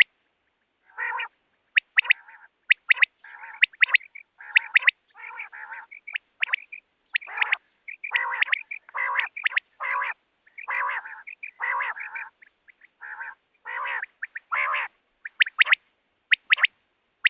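Quail calling over and over: quick, sharp high notes mixed with fuller calls about half a second long, several calls a second with short gaps between.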